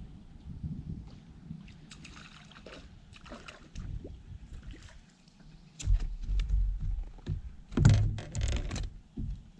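Knocks, rustles and light water sounds in a small fishing boat as a man works a long jig pole. A heavy low rumble starts about six seconds in, and the loudest handling clatter comes near the end as he reaches down into the boat.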